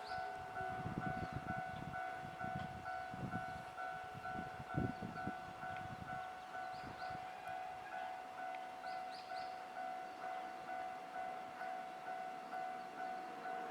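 Japanese railway level-crossing warning bell ringing in a steady rhythm of about two strikes a second, the alarm that a train is approaching. A low rumble with a few knocks runs under it for the first half.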